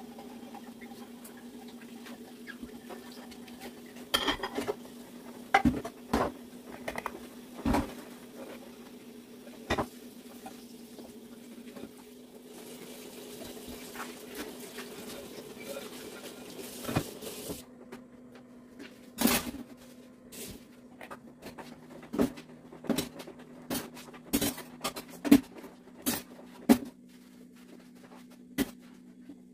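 Kitchen clatter: dishes, pans and utensils knocked and set down in irregular clinks and knocks, over a steady low hum. A soft hiss runs for a few seconds mid-way.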